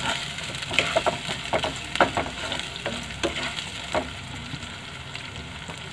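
Chopped onion and capsicum sautéing in oil in a non-stick kadhai, sizzling steadily while a spatula stirs and scrapes through them in a few quick strokes. The stirring stops about four seconds in, leaving only the sizzle.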